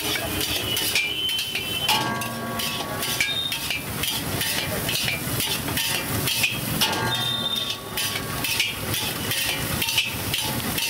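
Metal spatula and ladle scraping and clanking repeatedly against a large iron wok as fried rice is stirred and tossed. A steady pitched tone, like a vehicle horn, sounds twice in the background.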